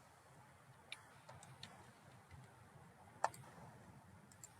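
A few sparse computer mouse clicks over near silence, the loudest about three seconds in.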